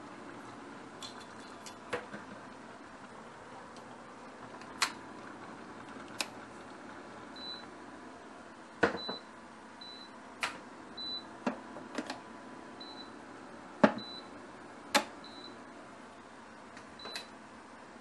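Scattered knocks and clicks of kitchen utensils at irregular times. From about seven seconds in, short high beeps repeat every second or two.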